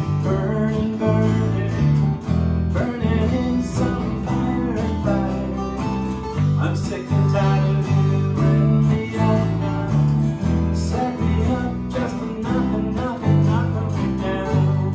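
Several guitars, acoustic and electric, playing a song together with a steady, moving bass line and strummed chords, in a stretch with no words.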